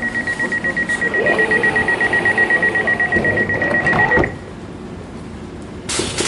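Train door-closing warning: a rapid, high-pitched beeping tone that stops about four seconds in. Near the end a sudden loud rush of noise begins.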